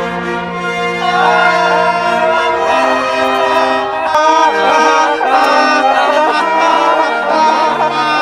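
Orchestral music with brass holding long chords that change every second or two.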